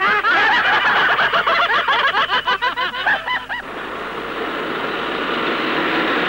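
A group of cartoon voices laughing in quick, high cackles; about three and a half seconds in the laughter stops and a steady hum of car engines in moving traffic takes over.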